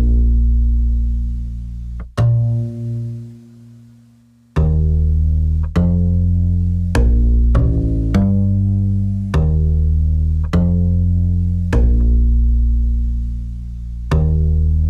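Music: a slow line of plucked low string notes, each struck sharply and left to fade, about one a second, with a short lull about four seconds in.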